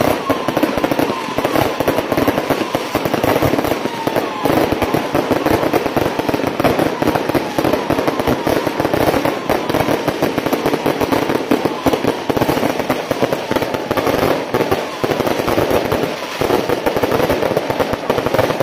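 Strings of firecrackers going off in a dense, continuous crackle of rapid bangs, with no break.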